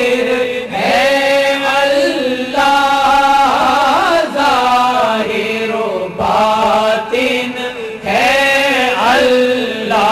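An Urdu naat being chanted: a voice sings long, ornamented held notes over a steady low drone, with short breaks about four and eight seconds in.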